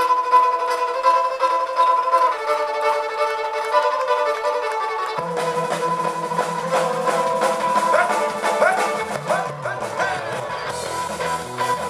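Irish rock band playing live: a fiddle opens the tune with long held notes, and about five seconds in the rest of the band comes in with bass notes and drums keeping a beat.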